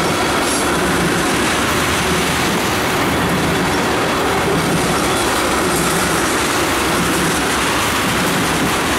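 A freight train's ethanol tank cars rolling past, their steel wheels running on the rails in a steady, unbroken noise.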